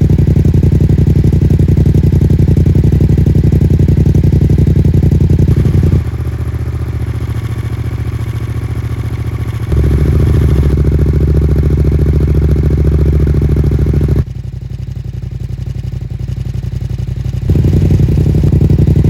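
Yamaha MT-07's parallel-twin engine idling steadily through a MIVV Delta Race exhaust. The level drops suddenly twice and comes back each time.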